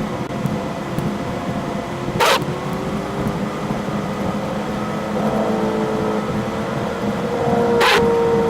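Ford Mustang engine and road noise at a steady cruise, the engine note rising gradually over the last few seconds as it picks up speed. Two short sharp bursts of noise come about two seconds in and near the end.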